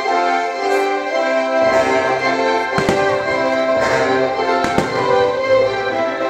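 Fireworks show: aerial shells bursting with sharp bangs, a pair about three seconds in and another pair near five seconds. Loud orchestral show music plays underneath.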